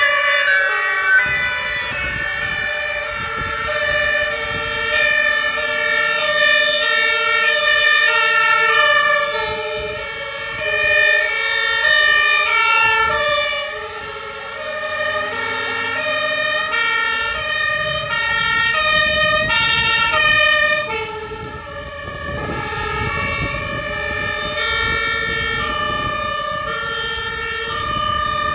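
Several fire engines' two-tone sirens (German Martinshorn) sounding at once, each alternating between two pitches and out of step with the others, as the vehicles drive past. Engine and tyre noise underneath.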